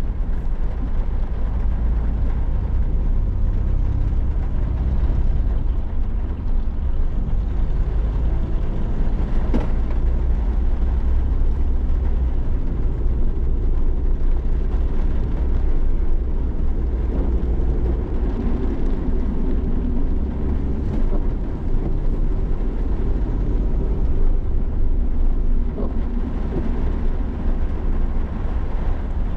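Suzuki Every Wagon kei van driving in heavy rain: a steady low rumble of road and engine noise with an even hiss of rain over it.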